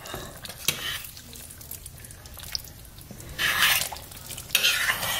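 Wooden spoon in a slow cooker of oxtail stew, the liquid dripping and sloshing, with a light tap about a second in. Two short, louder rustling bursts follow in the second half.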